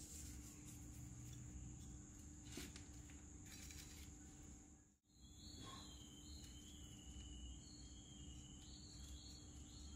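Faint outdoor ambience: a steady high-pitched insect drone over a low hum, with a few faint ticks. The sound drops out briefly about halfway through.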